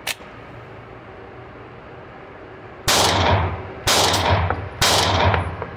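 Three pistol shots from a ported Glock 19C 9mm, about a second apart, each ringing on in the indoor range's reverberation. A short click comes right at the start.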